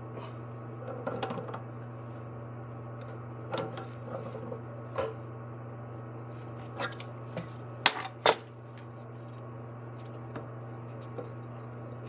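Scattered light clicks and knocks from parts being handled and fitted, with two sharp clicks close together about eight seconds in, over a steady low hum.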